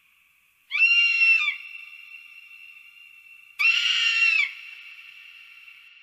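Eagle calling: two high, drawn-out screams about three seconds apart, each under a second long and followed by a long ringing echo.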